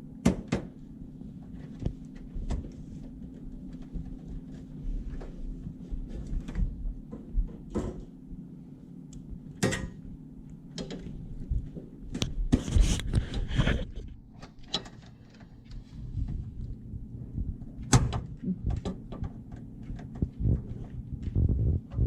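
Scattered clicks, taps and knocks from handling oven parts as the thermal fuse is clipped back into place, with a denser stretch of clatter around the middle, over a low steady hum.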